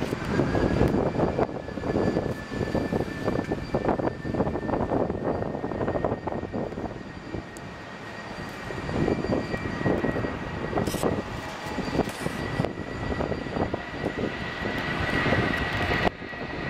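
Airliner engines running, with a steady high whine that creeps slightly up in pitch over a rushing rumble, which dips mid-way and grows louder again in the last several seconds.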